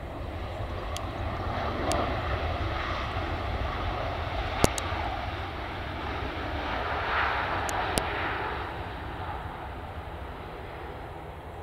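Jet engines of a Boeing 737 airliner running as it moves along the runway: a steady rushing roar that swells twice and eases off near the end. A few sharp clicks sound over it, the loudest a little before halfway.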